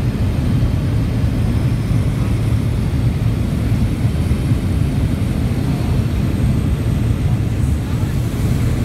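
Pilatus Porter aircraft's engine and propeller running steadily in flight, heard as a constant low drone inside the cabin.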